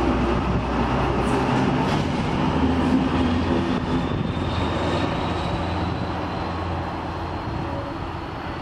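Vintage DB VT 12.5 diesel multiple unit pulling out, its diesel engines running steadily under load and fading as the train moves away. A faint high whine comes in about halfway and slowly rises in pitch.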